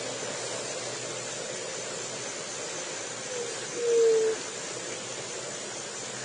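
A juriti, a Leptotila dove, gives one low coo about three seconds in: a short soft note, then a longer, slightly falling note. A steady hiss runs beneath it.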